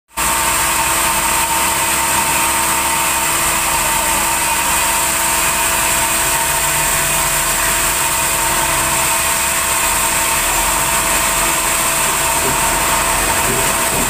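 Large band sawmill running: a steady, loud mechanical din with an even whine over it, unchanging throughout.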